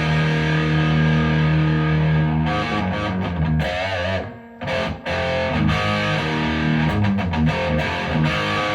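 Distorted electric guitar played through a Marshall DSL40CR tube combo amp: a held chord ringing for about two and a half seconds, then shifting notes, a brief stop around four and a half seconds in, and more riffing after it.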